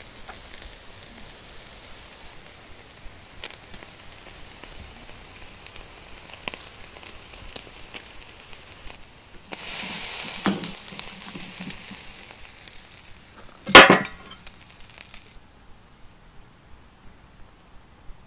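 Tomahawk ribeye steak sizzling on a grill grate over hot charcoal, at the direct-heat searing stage of a reverse sear. The sizzle is faint, with scattered crackles, until about halfway, when it suddenly gets much louder. It carries one sharp, loud crack a few seconds later and dies away suddenly before the end.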